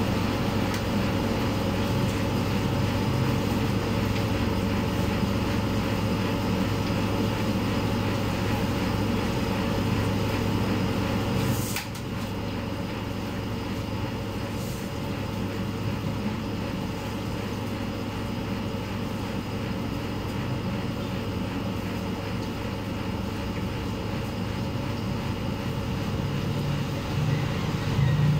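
Steady low mechanical hum of a running motor. About twelve seconds in there is a sharp click, and after it the hum is a little quieter.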